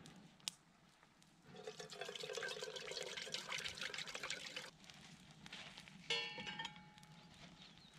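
Water pouring from a plastic bottle into a metal pot for about three seconds, starting about a second and a half in. About six seconds in comes a sharp, ringing clink of metal camp mugs.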